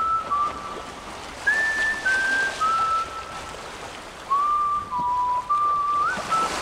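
A whistled tune: one clear line of notes stepping up and down, each held about half a second with short breaks between them, over a faint steady hiss.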